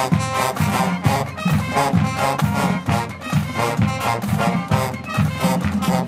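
Marching band playing: brass horns and sousaphones over a steady, driving drum beat.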